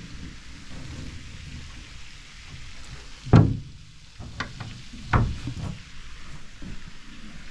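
A storage hatch lid on an aluminum boat being handled: two heavy knocks about two seconds apart with a few lighter clicks between, over a steady low rumbling hiss.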